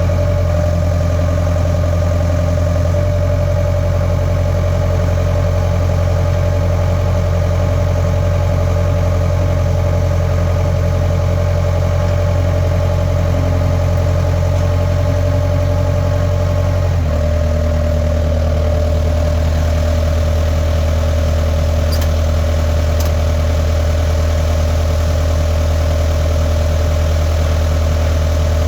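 Skid steer engine running steadily, its note changing once about two-thirds of the way through, with two faint clicks shortly after.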